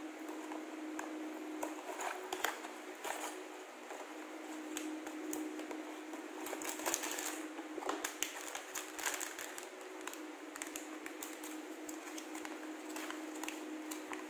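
Cardboard toy box and a clear plastic bag of small toy bricks being handled: irregular crinkling, rustling and clicking, busiest about halfway through, then paper rustling as an instruction sheet is unfolded near the end.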